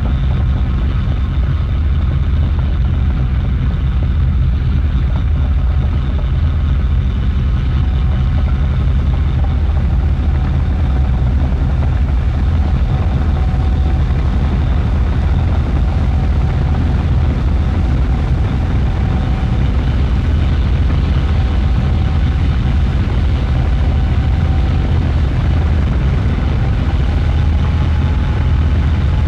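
Experimental drone music: a dense, steady low rumble with no breaks. A faint thin tone comes in about nine seconds in and rises slightly near the end.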